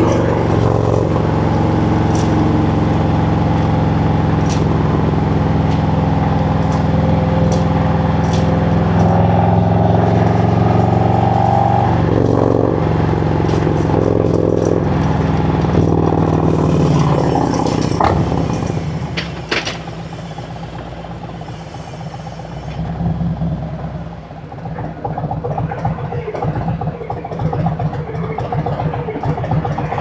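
Harley-Davidson Road Glide Special's Milwaukee-Eight 107 V-twin pulling steadily at cruising speed. About eighteen seconds in the throttle closes and the engine drops away as the bike slows, then settles into a loping idle near the end as it stops.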